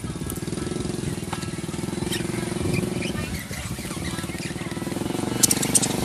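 An engine running steadily close by, with a few short, high chirps from caged budgerigars, a cluster of them near the end.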